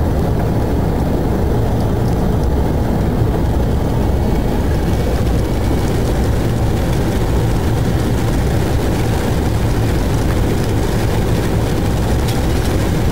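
Steady low cockpit noise of an airliner on final approach, airflow and engine noise. A brighter hiss fills in about five seconds in.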